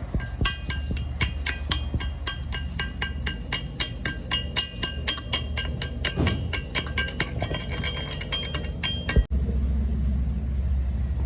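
Rapid metal-on-metal strikes, about five a second, each ringing at the same high pitches, like hammering on a steel part, over a steady low hum. Near the end the strikes cut off abruptly and only a louder low hum is left.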